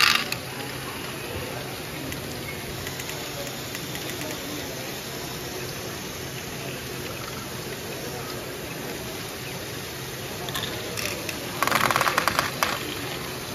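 LEGO Great Ball Contraption modules running: a steady mechanical background with scattered small clicks of plastic balls, a short clatter at the very start, and a dense burst of rapid clattering about twelve seconds in.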